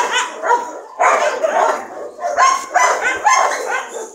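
Two dogs play-fighting, giving short yips and barks in quick succession.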